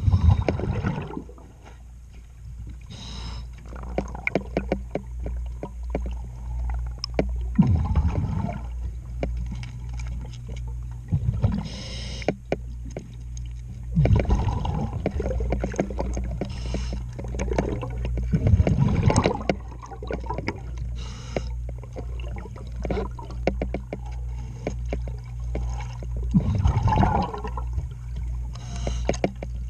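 Heard underwater: a scuba diver's exhaled bubbles gurgle out in a surge every few seconds, with gloved hands scrubbing growth off a fouled boat hull in small scraping clicks. A steady low hum runs underneath.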